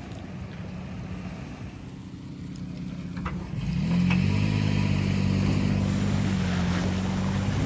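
Toyota FJ Cruiser's 4.0-litre V6 running, then revving up about four seconds in and holding high under load while the high-centred truck is pulled out of a muddy rut on a tow strap.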